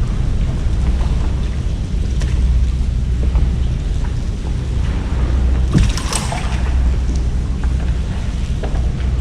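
Water sloshing against a small boat under a steady low rumble, with a short louder rush of noise about six seconds in.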